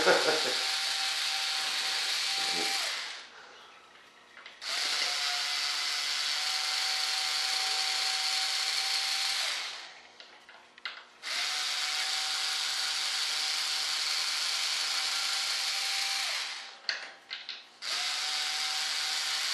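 Cordless drill backing screws out of a wooden mold flange, run in four spells of a few seconds each with a steady motor whine. There are short pauses between the spells, with a few light clicks in them.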